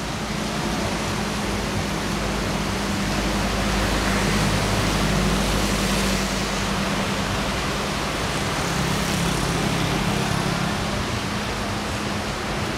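Steady hiss of light rain and small surf breaking on a sand beach, swelling slightly in the middle, over a low steady hum.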